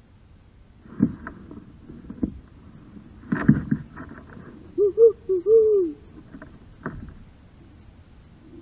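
Kayak paddle knocking against the hull a few times. About five seconds in comes a quick run of low hooting calls, the last drawn out and falling in pitch.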